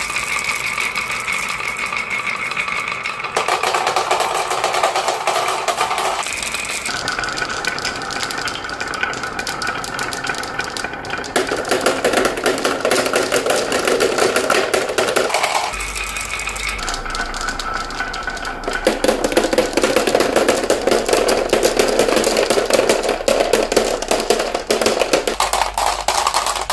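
Marbles rolling and clattering down a marble run track: a dense, continuous stream of small clicks and rattles. The rolling tone shifts every few seconds.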